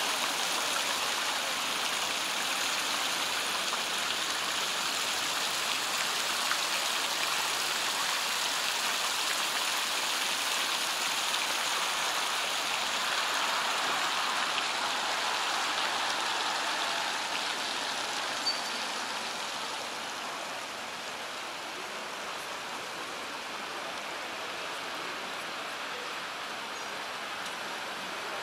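Plaza fountain jets splashing into their pool, a steady rush of falling water that grows a little fainter about two-thirds of the way through.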